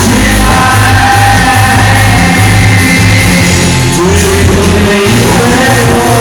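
Music with singing: a song with held, wavering sung notes over a steady band accompaniment.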